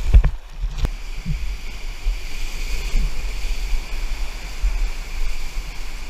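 Whitewater rapids rushing around a paddleboard, picked up by an action camera's microphone with a heavy low rumble of wind and water buffeting it. Two sharp splashes or knocks sound in the first second, then the steady rush of the rapid.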